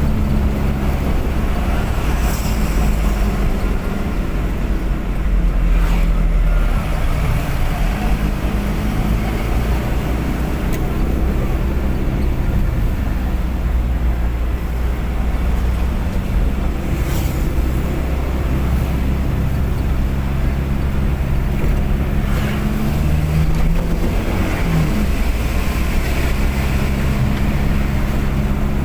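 Vehicle engine running steadily with road noise while driving, with a few brief sharp knocks.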